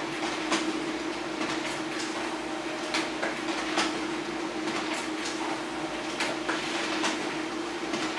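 HP LaserJet Pro M402d laser printer running a two-sided print job: a steady mechanical hum with sharp, irregular clicks and clacks about every half second to second as paper is fed through.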